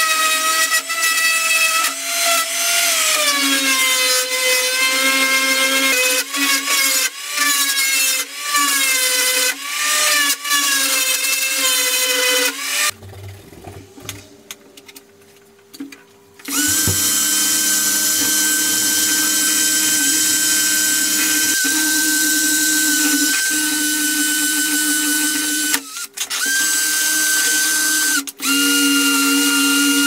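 A random orbital sander runs against a metal bell dome for about 13 seconds, its pitch sagging and wavering as it is pressed and moved. After a few quieter seconds a high-speed rotary tool with a felt polishing bob starts and spins at a steady pitch, buffing polishing paste onto the dome. It cuts out briefly twice near the end.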